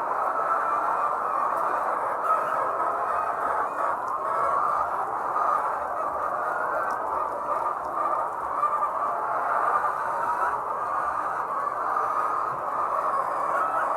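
A large flock of layer hens clucking and calling all at once in a steady, continuous chorus.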